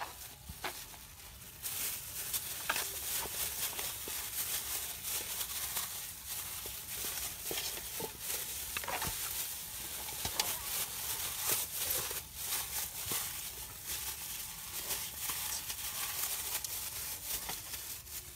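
Plastic bag worn over a hand crinkling and rustling as it rubs chili paste over a raw whole chicken in a steel pot, with many small clicks and taps. The steady rustle starts about two seconds in.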